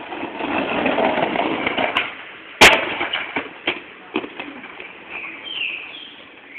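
Skateboard wheels rolling over rough paving, growing louder, then a sharp crack as the board hits the ground about two and a half seconds in. A few smaller knocks follow as the board clatters and bounces away on its own.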